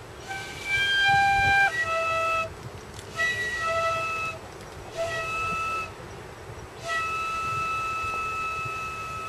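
Iwabue (Japanese stone flute) blown in a series of long held whistling notes. The pitch steps down and back up from note to note, with short breaks between them, and the last note, from about seven seconds in, is held longest.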